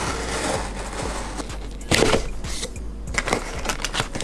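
A cardboard box being cut open with a knife and its flaps pulled apart: a scratchy slitting through the packing tape, a sharp rip about two seconds in, then cardboard rustling and clicking as the flaps are handled.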